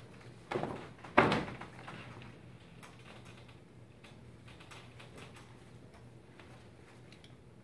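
Two heavy thumps about a second in, followed by faint scattered clicks and knocks over a low steady hum.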